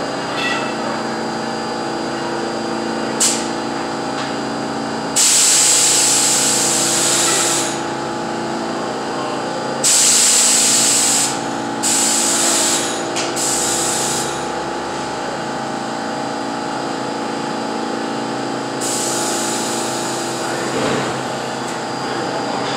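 Stopped New York City subway train's equipment humming steadily, broken by several loud bursts of compressed air hissing from its air system, the longest lasting about three seconds.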